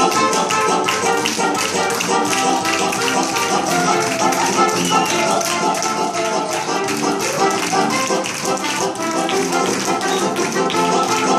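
Upbeat dance music with a quick, steady beat of tapping percussion.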